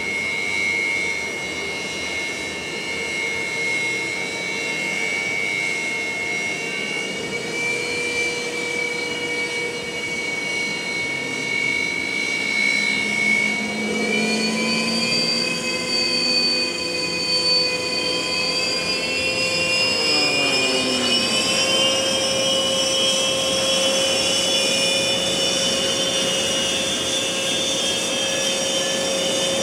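Sukhoi Su-30MKM fighter's jet engines whining on the ground. Several steady turbine tones climb in pitch about halfway through and again later as the engines spool up.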